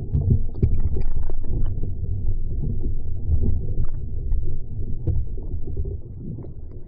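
Wind buffeting the microphone: a loud, uneven low rumble that swells and dips, with a few faint clicks over it.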